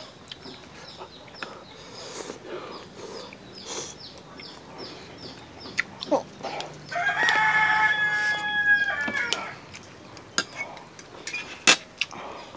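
A rooster crowing once, one drawn-out call of about two and a half seconds starting around seven seconds in. Before it comes a run of quick, evenly repeated high chirps, and a few sharp clicks sound throughout.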